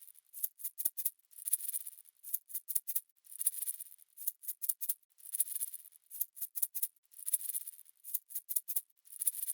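Shaker percussion playing a steady looped rhythm, a long swish every two seconds with quick ticks in between.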